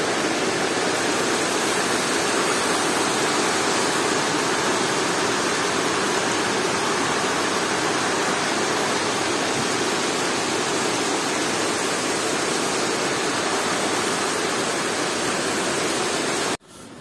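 Muddy rainwater runoff rushing down concrete steps and across a path during heavy rain: a steady, even rushing of water that cuts off suddenly near the end.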